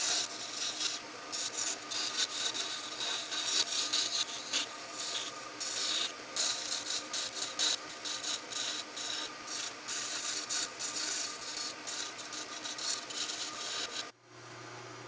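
A wood lathe spinning a wooden spindle while a hand-held turning tool cuts into it, roughing out a bead: a rough shaving, scraping noise that rises and falls with each pass, over the steady hum of the lathe. About a second before the end the cutting stops abruptly and only the lathe's hum is left.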